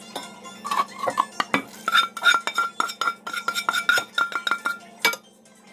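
Slotted spatula scraping and knocking against a metal frying pan and the rim of a cooking pot in quick, uneven clinks and scrapes as fish in yogurt sauce is scraped out onto rice. A ringing metallic tone sounds through the middle of the scraping, which stops about five seconds in.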